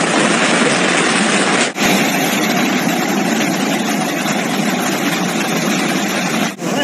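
Floodwater rushing in a steady, loud wash of noise; a little under two seconds in it cuts abruptly to a second stretch of fast-flowing torrent.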